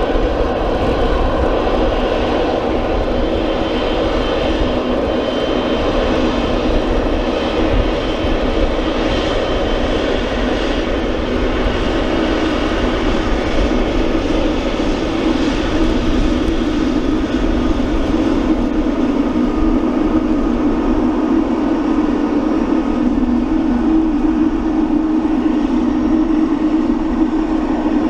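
Boeing 777F's twin GE90 turbofan engines running at low taxi thrust: a steady jet whine over a broad rumble. A hum in the low-middle range grows a little stronger in the second half as the aircraft turns onto the runway.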